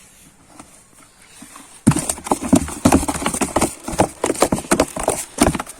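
A sudden burst of rapid, irregular knocks and slaps starting about two seconds in.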